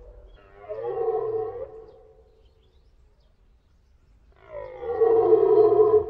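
Red deer stag roaring, the rutting bellow: one roar lasting over a second starts about half a second in, then a louder, longer roar begins about four and a half seconds in.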